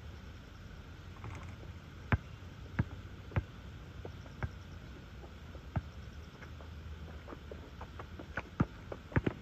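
Basketball bouncing on an asphalt court as it is dribbled: a series of sharp, short bounces at uneven spacing, several in quick succession near the end, over a steady low rumble.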